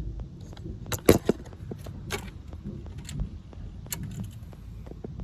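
Several sharp metallic clinks and a short rattle, the loudest just over a second in, like tools or metal parts being handled. Under them is a faint, fast, regular ticking.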